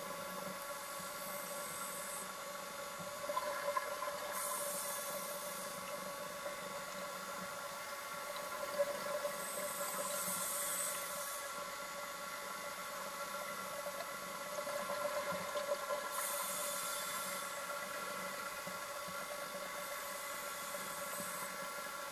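A steady hum of several fixed tones under an even hiss, with short bursts of higher hiss every five or six seconds.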